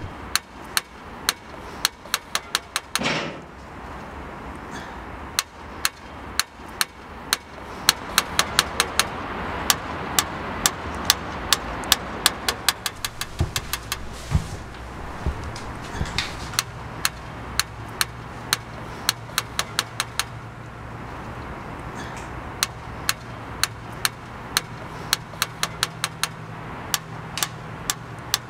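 A run of sharp, irregular clicks, about three a second, over a steady background hiss. A low steady hum comes in about halfway through.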